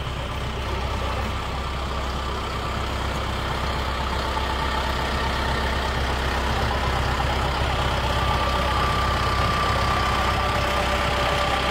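Kubota M4-071 tractor's diesel engine running steadily, growing slightly louder.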